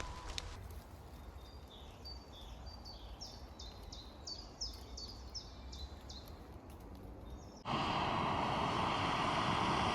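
A small songbird sings a repeated phrase of short, high, falling notes, about two a second, over faint woodland background. Near the end a steady, louder hiss cuts in abruptly.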